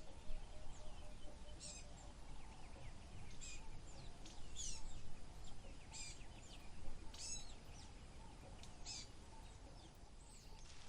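A bird chirping, short high calls repeated about every one to two seconds, over a steady low background rumble.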